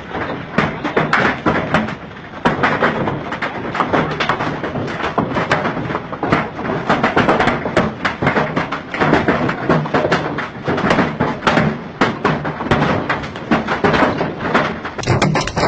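Hailstorm: hailstones pelting a hard surface in a dense, irregular clatter of sharp hits.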